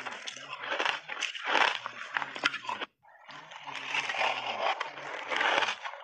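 Close, crackling crunching and chewing of ice chunks coated in matcha powder, picked up by a lapel microphone, with a brief break about halfway through.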